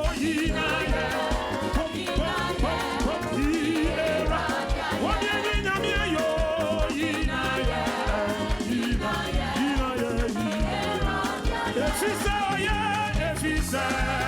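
Ghanaian gospel praise music: a sung melody with vibrato over a band playing a steady, evenly repeating drum-and-bass beat.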